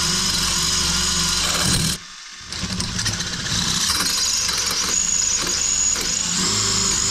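Power drill running under load, its bit boring into a broken stainless-steel exhaust stud in an aluminum cylinder head. The drill stops about two seconds in and starts again half a second later.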